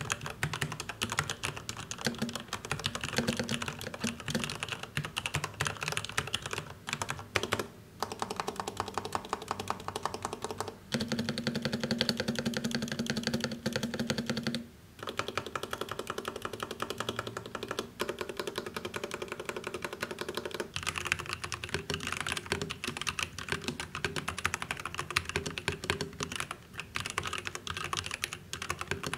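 Typing on 65% mechanical keyboards as a sound test, in several short takes with brief pauses between them. It starts on an ROG Falchion with Cherry MX Red linear switches. In the last part it is an ROG Falchion Ace with pre-lubed ROG NX Red switches, bottom foam and a metal plate, which gives a bright but fine typing sound.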